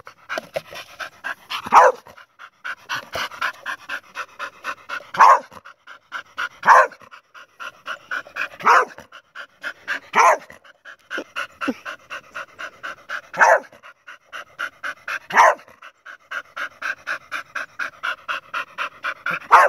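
Dog panting hard and fast, about four breaths a second, broken by about eight sharp barks spaced a second or two apart. The dog is agitated, jumping up and barking at a garden owl ornament.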